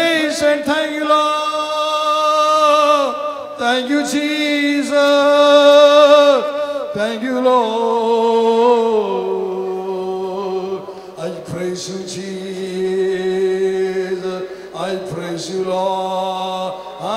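A man singing a slow worship song into a microphone in long, held notes, with a keyboard playing along. The notes waver in pitch for the first half, then settle into a steadier sustained tone about halfway through.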